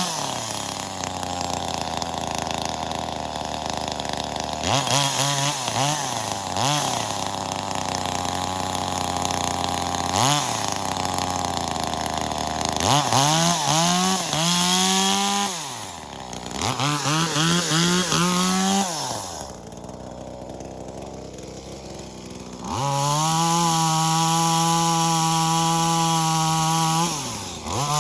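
Two-stroke engine of a V-Modest 2511T, a clone of the Echo 2511T top-handle chainsaw, revving up and down repeatedly while cutting wood. About twenty seconds in it drops back to idle, then it is held at full throttle at a steady pitch for about four seconds and falls off again near the end.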